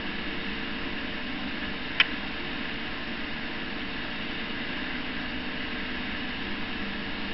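Steady hiss with a faint hum from an old VHS videotape playing, with one sharp click about two seconds in.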